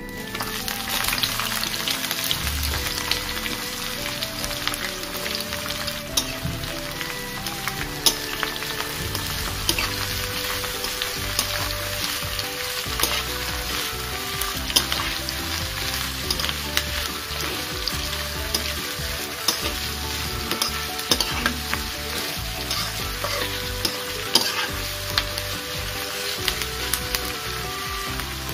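Sliced onions sizzling as they fry in hot oil in a steel kadai, the sizzle jumping up about half a second in as they go into the oil. A spatula scrapes and clicks against the steel pan as they are stirred.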